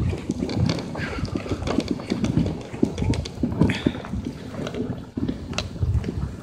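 Dog sled running over snow behind a team of huskies: a quick, irregular patter of crunching and thumping from the dogs' paws and the sled runners.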